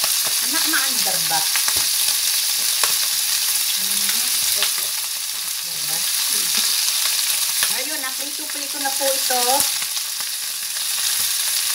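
Chicken adobo pieces frying in hot oil in a skillet with a steady sizzle, after being boiled in their marinade. Now and then the tongs click against the pan as the pieces are turned.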